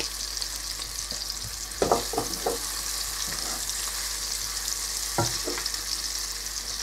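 Sliced onions and spices sizzling in hot oil in a frying pan, a steady high hiss. A wooden spoon stirs them, knocking and scraping against the pan in a few quick strokes about two seconds in and again after five seconds.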